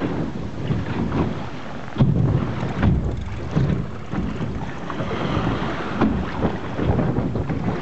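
Gusty wind buffeting the microphone on a small boat at sea: an uneven low rumble with sudden louder gusts, the strongest about two seconds in.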